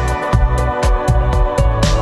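Background music with a steady drum beat over held chords.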